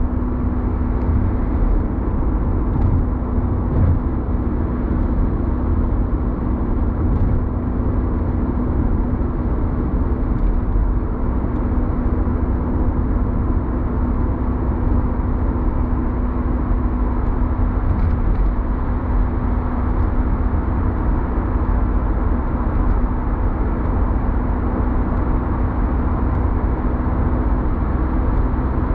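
Steady road noise inside a moving car's cabin at motorway speed: tyres and engine with a constant low hum.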